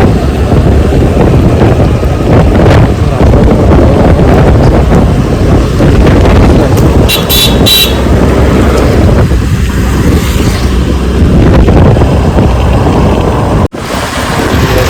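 Strong wind buffeting the microphone amid road traffic. A brief high-pitched vehicle horn toots about seven seconds in, and the sound cuts out for an instant near the end.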